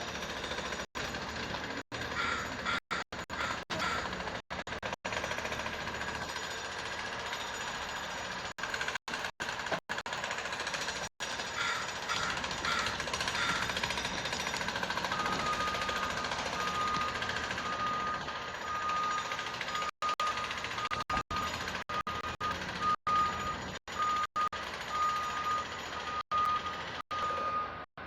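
Steady mechanical background noise with a clattering, machinery-like character. From about halfway a high, steady beeping tone runs on and off. The sound cuts out briefly many times.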